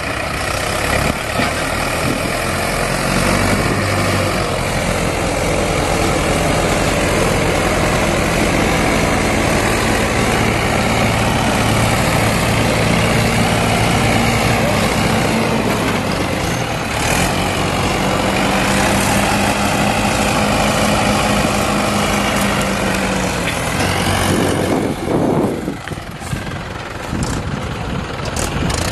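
Mahindra tractors' diesel engines running hard under heavy load while towing a tractor out of deep sand on a rope; the engine note holds with a slight waver, then eases off near the end.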